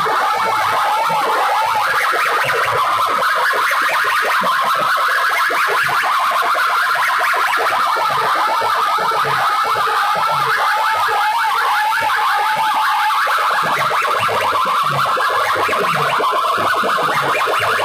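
Banks of horn loudspeakers blasting a harsh, distorted electronic blare at full volume, with shrill wavering tones and a pulsing low thud underneath.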